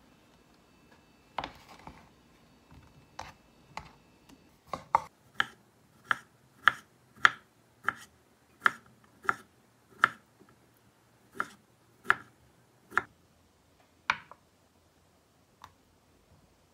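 Kitchen knife chopping pickled gherkins on a wooden cutting board: about fourteen sharp, even chops, roughly one and a half a second, with a few scattered knocks before them.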